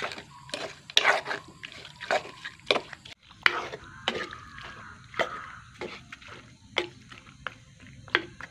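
Wooden spoon stirring raw, spice-coated chicken pieces in an earthenware clay pot: wet squelching and sloshing of the meat with irregular knocks and clicks of the spoon against the pot.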